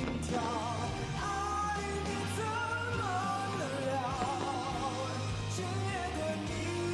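A pop song with a singing voice, held notes with vibrato, over a steady bass line.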